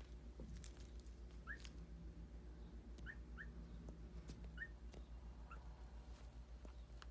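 Toy poodle puppy whimpering faintly in its sleep: five or so short, high, rising squeaks spread over several seconds.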